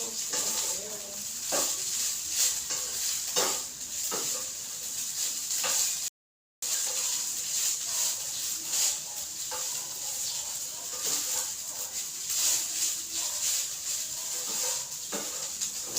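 Rice frying in a pan for sinangag (garlic fried rice), sizzling steadily while it is stirred, with scattered clicks and scrapes of a utensil against the pan. The sound cuts out for about half a second roughly six seconds in.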